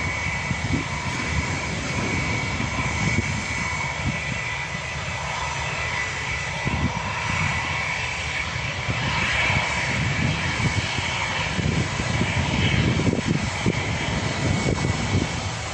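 Jet airliner engines running on the airfield: a steady rumble with a high whine, swelling a little past the middle.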